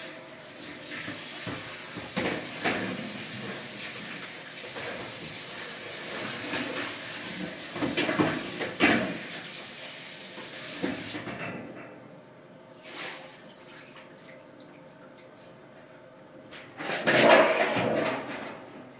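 Kitchen tap running onto a large metal tray while it is rinsed in the sink, with a few knocks and clanks of the tray against the sink. The water shuts off about two-thirds of the way through. Near the end comes a louder clatter as dishes are set into a wire drying rack.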